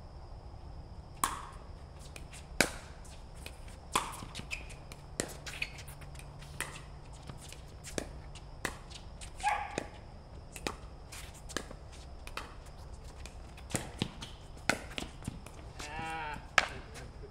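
Pickleball rally: paddles striking the plastic ball in a series of sharp pops, about one every second, with ball bounces on the court in between.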